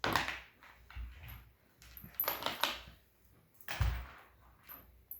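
Soft-sided dog carrier being pushed and handled, making rustling and bumping noises in four short bursts, with a thump just before the end.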